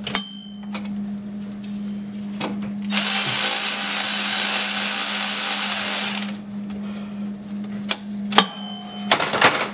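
Cordless ratchet motor running for about three seconds in the middle. Sharp metal clicks and a ringing clink of the tool and socket on the fittings come before and after it.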